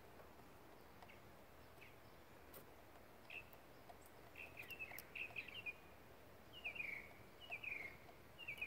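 A small bird singing faint, quick chirping phrases in several short bursts, starting about three seconds in, over steady quiet outdoor background noise.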